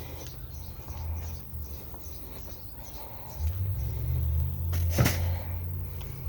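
Low rumbling noise that grows louder about three and a half seconds in, with one sharp click about five seconds in.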